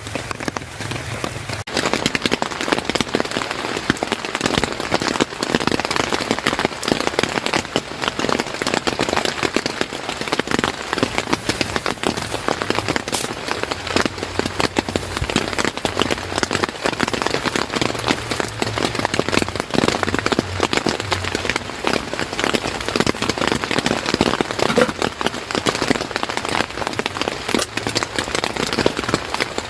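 Steady rain falling on a surface, a dense, even spread of many separate drop hits.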